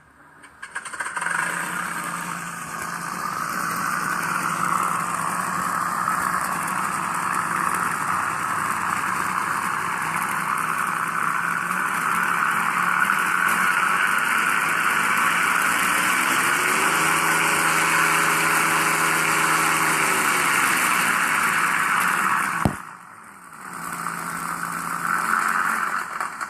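RC model engine sound module playing a simulated P-47 Thunderbolt radial engine: it starts up and runs steadily, revs up about two-thirds of the way through, holds, then drops back. Near the end a sharp click comes and the sound dips out briefly, then picks up again.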